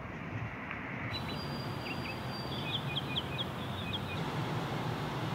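Steady outdoor background noise with a small bird chirping a quick run of short high notes around the middle.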